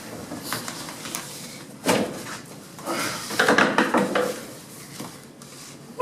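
Bumps and knocks on a fiberglass Corvette body as someone climbs in through its window opening: a sharp knock about two seconds in, then a cluster of clattering bumps a second later.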